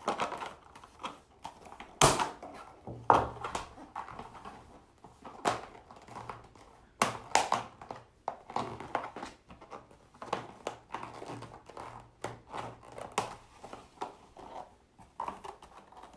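Irregular clicks and knocks of hard plastic cage parts as a plastic strip is slid along a tight groove in a feeding trough, with a few louder knocks among them.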